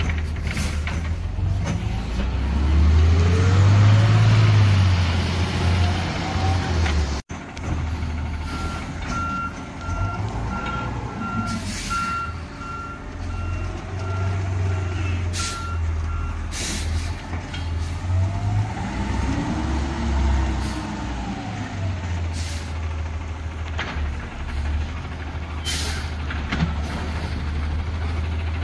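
Garbage truck's diesel engine running, its pitch rising and falling several times, with a string of reversing beeps for several seconds in the middle and a few short air-brake hisses.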